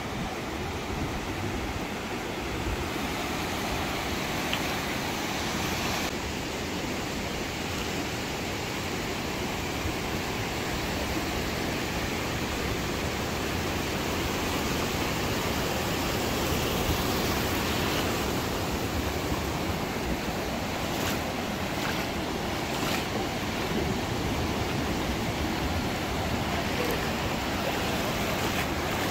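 Ocean surf breaking and washing up a flat sandy beach in a steady hiss, with wind on the microphone.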